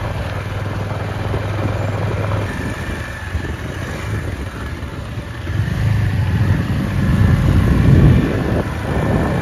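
A motor vehicle's engine running on the move, growing louder and deeper from about five and a half seconds in and easing off again near the end.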